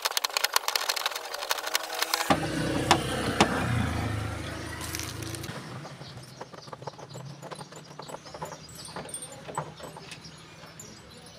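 Screwdriver backing screws out of an air cooler's plastic casing: rapid clicking for the first two seconds, then scattered clicks and small rattles.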